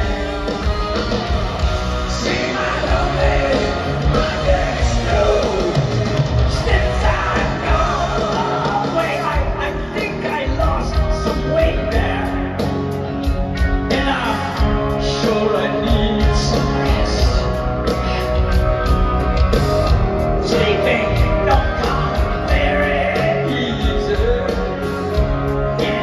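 Live rock band playing with a lead vocalist singing over it, heard from the audience in a large arena.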